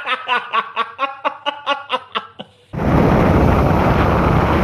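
A man laughing hard in quick rhythmic bursts that fade out. About two-thirds through this cuts to loud, steady wind rush on the microphone from riding along a road.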